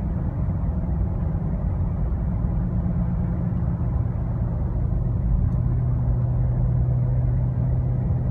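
Car at highway cruise heard from inside the cabin: a steady low engine drone at about 2,500 rpm under road and tyre noise, holding an even pitch at about 55 mph.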